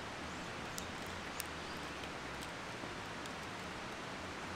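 Steady, even hiss of outdoor ambience, with a few faint sharp ticks about a second in.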